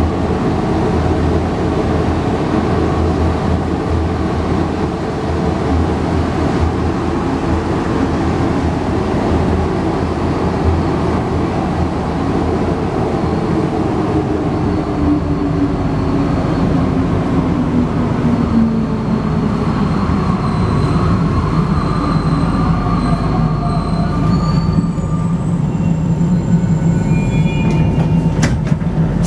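Alstom NS-93 rubber-tyred metro train heard from inside the car, running and then braking into a station: steady running noise, with the motor whine falling in pitch as the train slows. High brake squeals come in over the last ten seconds, and a few sharp clicks come near the end.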